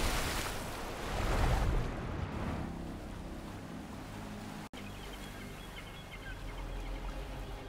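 Ocean surf washing and breaking against a rocky shore, swelling twice in the first two seconds. After a brief cut partway through, a steadier, quieter wash follows with a faint low hum and a few faint high chirps.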